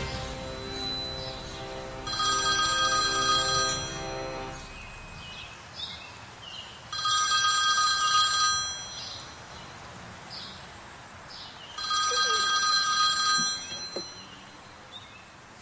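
A telephone ringing three times, each ring a steady high tone of under two seconds, about five seconds apart; background music fades out during the first ring.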